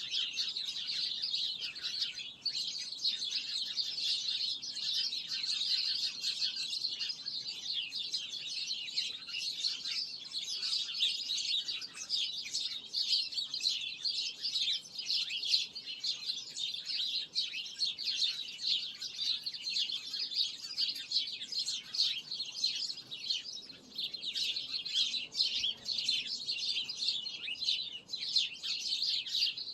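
Many birds chirping at once: a continuous, dense stream of overlapping high chirps with no pauses.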